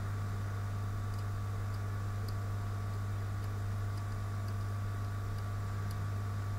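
Steady low electrical hum, with a few faint light ticks scattered through it.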